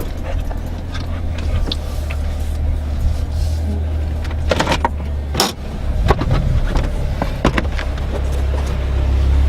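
Jeep engine running with a steady low drone, with a few sharp clicks and knocks about halfway through and again later.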